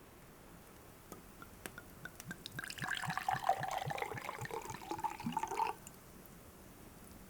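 Hot tea poured into a cup for about three seconds, the pitch of the pour rising slightly as it fills, then stopping abruptly. A few light clicks of crockery being handled come just before the pour.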